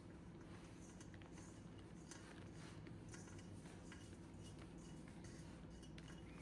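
Near silence: a faint steady low hum with a few light ticks and clicks.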